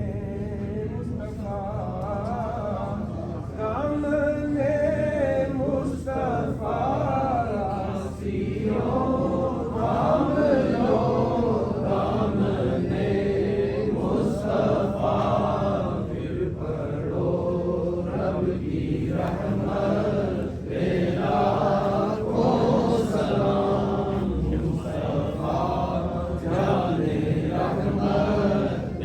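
Men's voices chanting together in a sung devotional recitation, over a steady low hum.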